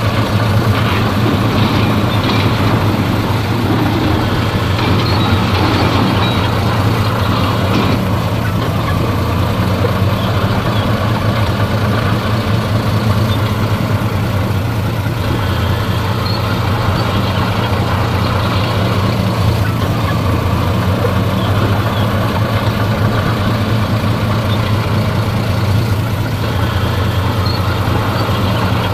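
Heavy diesel engine of earthmoving machinery running steadily at an even speed, a continuous low hum with no revving or impacts.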